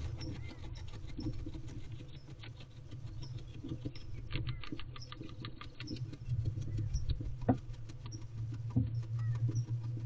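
Barn owl preening and scratching in a nest box: irregular rustling and scratching of feathers and wood-shaving bedding, with scattered clicks, over a steady low hum.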